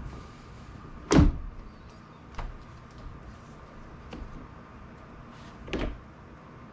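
Handling knocks from a windshield glass in its rubber seal being worked into a Jeep's windshield frame: a loud knock about a second in, a lighter tap a little after two seconds, and another solid thump near the end.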